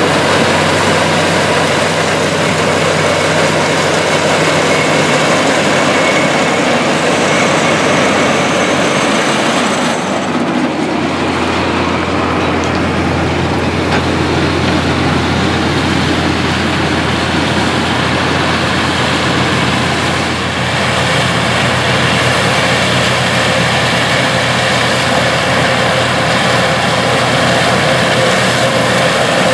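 Tractor engines running under load while tractor-mounted corn pickers harvest standing dry corn: a steady mechanical din of engine and picker. A deeper engine note comes in about ten seconds in.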